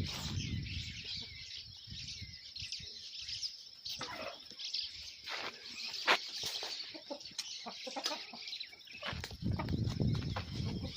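Domestic chickens clucking in short scattered calls, with a low rumbling noise coming in near the end.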